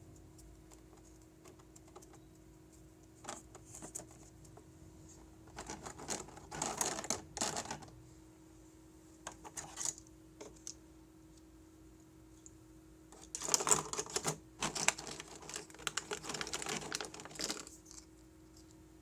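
Packaging and parts being handled by hand, giving scattered clicks and two stretches of rustling and clicking, about six to eight seconds in and again from about thirteen to seventeen seconds. A faint steady hum runs underneath.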